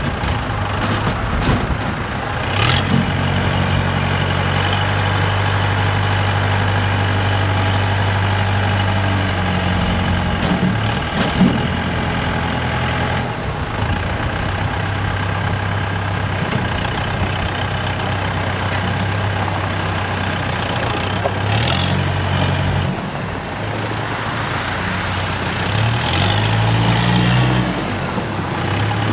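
A 2007 Kubota M7040 tractor's four-cylinder Kubota diesel engine running as the tractor drives and works its front loader. The engine note shifts up and down in pitch several times.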